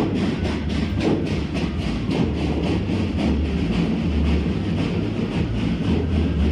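Parade marching drums playing a steady march cadence: quick, even snare strokes several times a second over a deep bass-drum beat about once a second.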